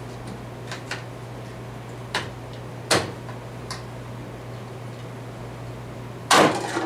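AR-15 handguards being refitted onto the rifle: a few scattered light clicks of plastic and metal, then a louder clack near the end.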